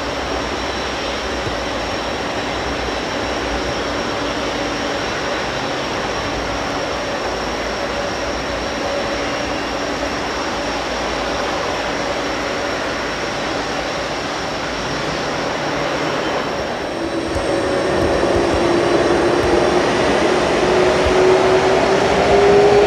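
Boeing 767-300ER jet engines running at low power: a steady rushing noise with faint whining tones. About three-quarters of the way through, a rising whine sets in and the sound grows louder as the engines spool up.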